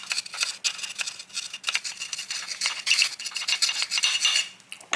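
Tip of a metal file scraping back and forth on the rough cast-metal blade bed of a Tactix block plane in quick, uneven strokes, knocking down the lumps left from casting.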